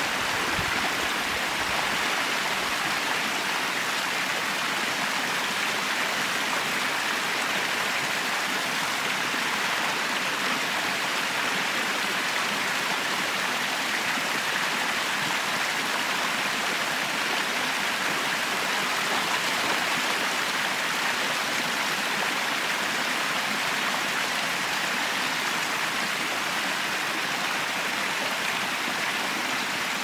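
Small waterfalls spilling over rock ledges into a shallow stream, a steady rushing of water.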